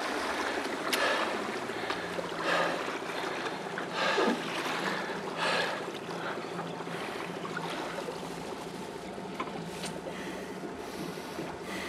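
Water lapping and splashing against the hull of a small boat on a calm lake, with slightly louder splashes about every second and a half early on, under a faint steady low hum.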